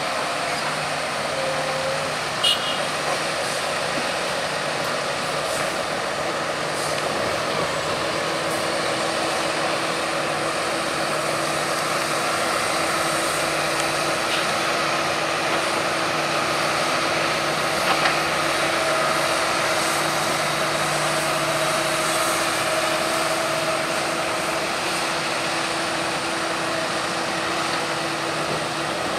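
Diesel engines of a Hitachi Zaxis 210 LC excavator and a New Holland T7.245 tractor running steadily while the excavator digs and loads slurry. Two short clanks stand out, one a couple of seconds in and another just past halfway.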